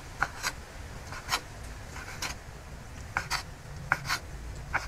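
Kitchen knife dicing slippery aloe vera gel on a round wooden cutting board: short, irregular cuts with the blade tapping the wood, some in quick pairs.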